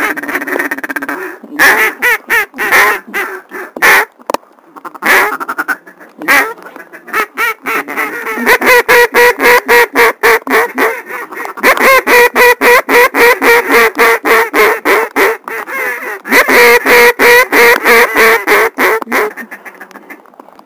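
Duck call blown close by in long runs of rapid, evenly spaced quacks, several runs in a row with short pauses between them.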